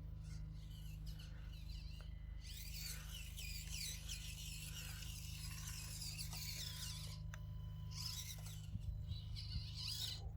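Axial SCX24 micro crawler's small electric motor and gears whining as it drives through mud, the pitch rising and falling with the throttle in spells, over a steady low rumble.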